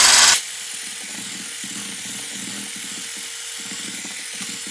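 Electric hand blender with a whisk attachment whipping eggs and sugar in a glass bowl until frothy. It starts very loud, then drops abruptly a moment in to a steadier, quieter whir.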